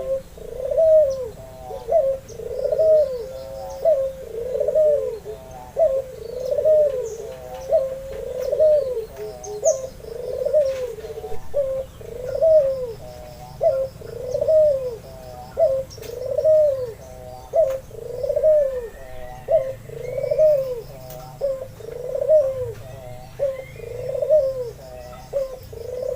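White albino Barbary dove (puter) cooing steadily, one arched rolling coo about every second. Faint high chirps of small birds come in now and then behind it.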